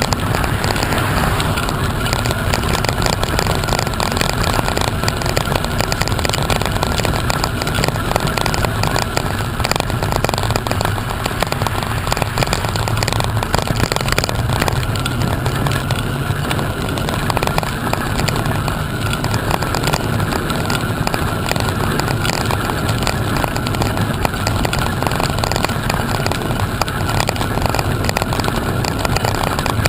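Steady rushing wind and travel noise buffeting the microphone of a moving camera, loud and unbroken.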